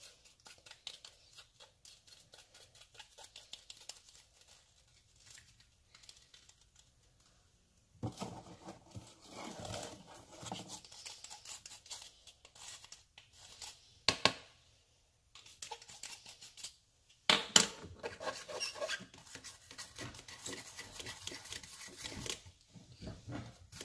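Hands crushing something dry and crumbly by hand, making irregular crackling, crinkling and scraping. It is faint and sparse at first, then comes in louder stretches, with one sharp click around the middle.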